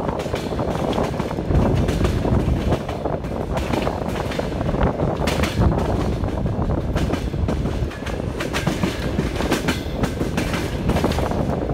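Train wheels clicking over rail joints over the steady rumble of a moving passenger train.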